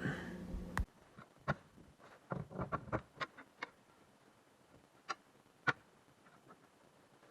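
Faint, irregular clicks and ticks, about a dozen, scattered over several seconds with a short cluster near the middle.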